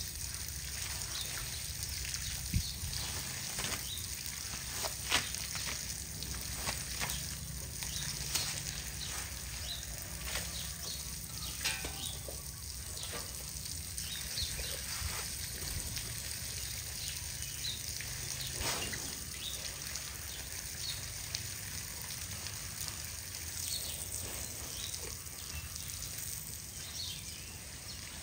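Water spraying from a garden hose onto a wet concrete floor: a steady hiss with scattered splashes and spatters.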